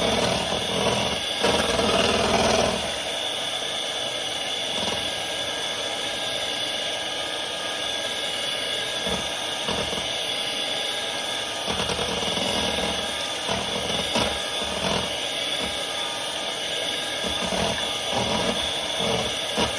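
Electric hand mixer running steadily, its beaters whirring through cake batter. It is louder for the first few seconds and switches off at the very end.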